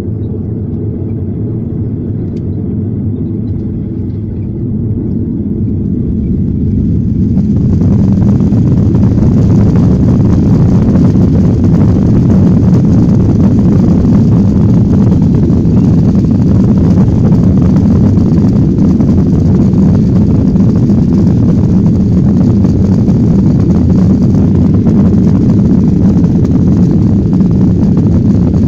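Boeing 737-800's CFM56 jet engines heard from inside the cabin: a low rumble that swells over the first several seconds, then about seven seconds in jumps to a loud, steady rumble with a hiss on top, as the engines spool up to takeoff thrust for the takeoff roll.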